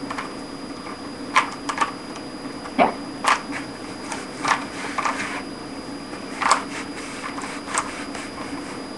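Irregular plastic clicks and clacks of a Rubik's Cube's layers being twisted as it is scrambled, about one every half second to second, over a steady low hum.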